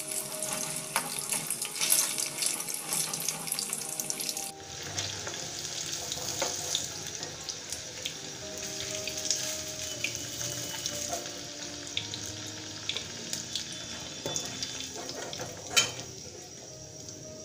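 Food frying in hot oil in a wok, a dense crackling sizzle. About four and a half seconds in, the sound cuts to a quieter, duller sizzle under soft background music. There is one sharp clink near the end.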